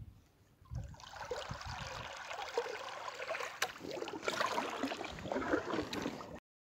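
Water splashing and trickling close by as a kayak paddle dips into the river, a run of small irregular splashes and drips. It stops suddenly near the end.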